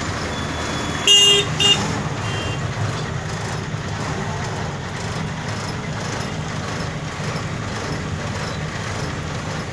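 Truck engine running steadily at a crawl, heard from inside the cab. About a second in, a vehicle horn honks twice, loudly and briefly, followed by a fainter third honk.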